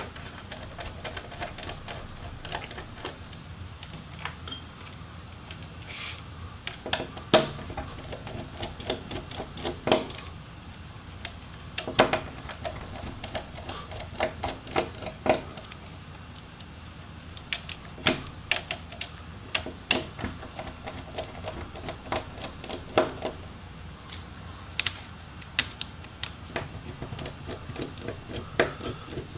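A small screwdriver backing out hinge screws on a laptop's display back cover, giving irregular sharp clicks and ticks of metal on metal and of small parts set down on the cover.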